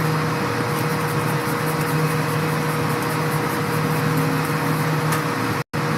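Steady machine hum of a rooftop HVAC unit, a constant low drone with a hiss over it, cut off for an instant near the end.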